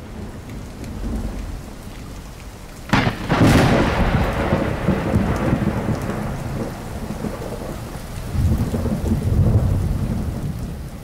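Thunderstorm sound effect: a steady hiss of rain, a sharp thunderclap about three seconds in that runs into a long low rumble of thunder, and a second rumble near the end.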